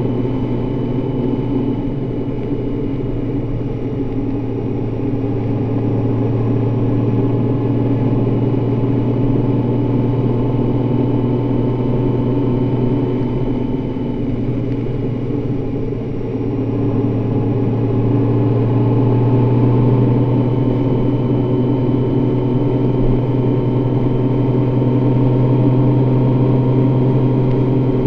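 Honda Gold Wing motorcycle engine running steadily at highway cruising speed, heard from on the bike with wind rush. The engine note eases off briefly around the middle and swells again as the throttle comes back on.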